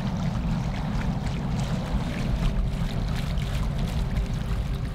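Water rushing and splashing along a catamaran's hulls as it moves, over a steady low rumble.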